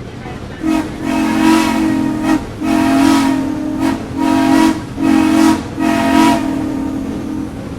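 Steam locomotive whistle blowing a series of blasts, some long and some short, over the steady running noise of the train.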